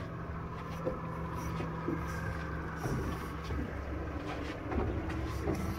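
Boat motor running with a steady low hum; one of its tones drops out about three seconds in.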